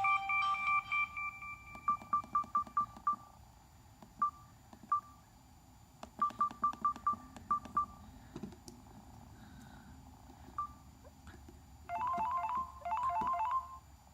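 Samsung Convoy flip phone: a synthesized ringtone melody dies away in the first second. Then come several runs of short beeps, all at one pitch, with faint clicks, typical of the phone's keypad tones as its buttons are pressed. Near the end another ringtone begins with two short trilling bursts.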